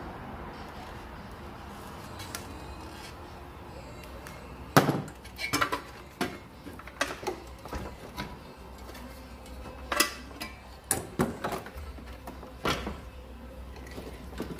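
Irregular knocks and clatters of a car's battery tray being worked loose and lifted out of the engine bay, knocking against the parts around it. The sharpest knock comes about five seconds in, after a few seconds of low hum.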